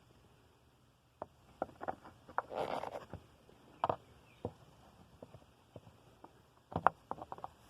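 Scattered plastic clicks and knocks from the Jeep Renegade's engine air box and new air filter being handled and seated. There is a short scraping rustle about two and a half seconds in and a quick run of clicks near the end.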